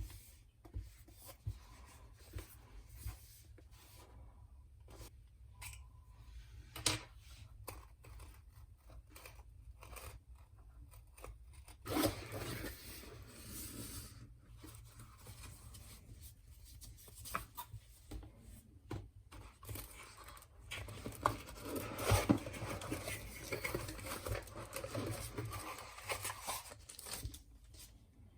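A keyboard's cardboard box and packaging being handled and opened, with scattered knocks and clicks. Longer stretches of handling noise come about 12 seconds in and again from about 20 seconds, with the loudest knocks around 22 seconds.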